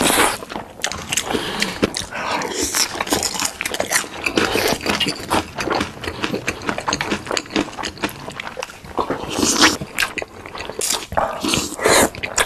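Close-miked eating sounds: wet chewing and lip smacking through mouthfuls of creamy pasta and sausage, with noodles being slurped near the end.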